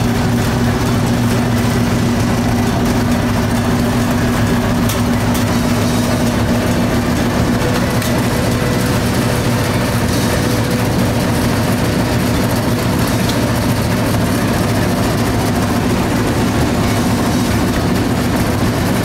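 Mold-A-Rama vending machine running through a molding cycle, a loud steady mechanical hum that comes in abruptly at the start.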